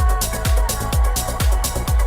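Electronic dance music with a steady kick drum about twice a second, hi-hats between the beats and held synth notes.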